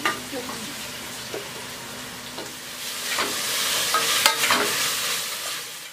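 Onions and tomatoes sizzling in a pot on a gas stove while a spatula stirs and scrapes against the pan. The sizzling grows louder about halfway through.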